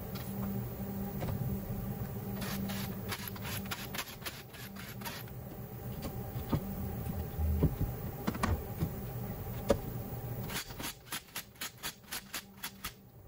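Clicks and metallic taps of hand tools and bolts on a steel torque plate bolted to a small-block Ford V8 block, over a steady low machine hum. Near the end there is a quick, even run of clicks, about three a second.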